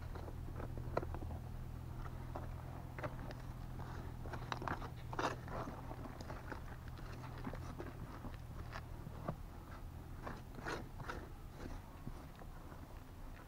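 Hands and a small hand tool scraping and crunching through dry soil and loose stones, with scattered clicks of gravel. The loudest crunches come about five seconds in and again near eleven seconds, over a low steady hum.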